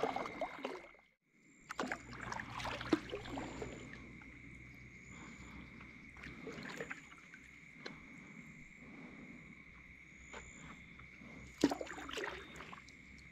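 Faint paddling from a fishing kayak: soft paddle strokes and water lapping at the hull, with a few small splashes and knocks.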